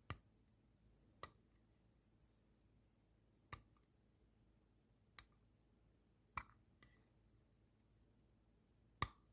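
Faint, sharp clicks of a pocket watch's case back being worked at by hand while trying to pop it open: about seven clicks, irregularly spaced a second or two apart.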